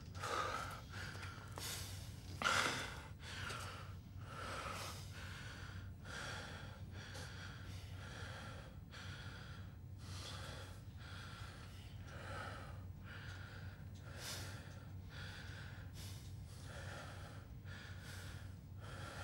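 A man breathing hard and fast, about two breaths a second, with one louder gasp about two and a half seconds in: out of breath after a boxing bout.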